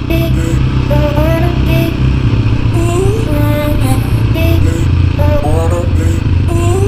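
Background music with a sung melody and a steady beat, over a dirt bike's engine running.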